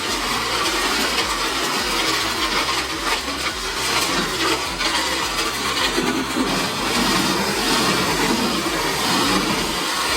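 Truck-mounted Eschlböck Biber 92 wood chipper, powered by a MAN truck's engine, running steadily while chipping wood, a loud continuous noise.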